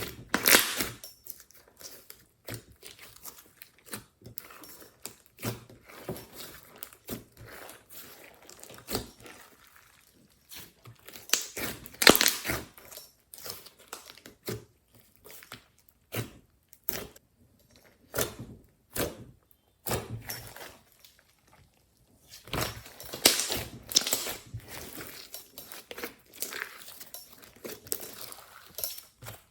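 Hands squishing and stretching glossy slime with clay mixed in, giving irregular sticky crackles and popping clicks. The sounds come in denser bursts about a second in, around the middle, and again for a few seconds near the end.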